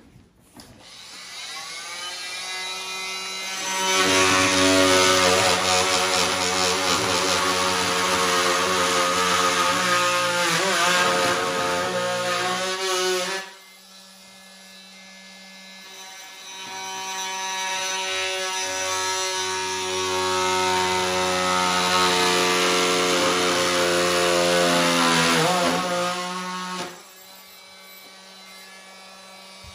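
Corded oscillating multi-tool running and cutting into hardwood floorboards in two long cuts of about ten seconds each. Between the cuts and near the end it runs more quietly, off the wood.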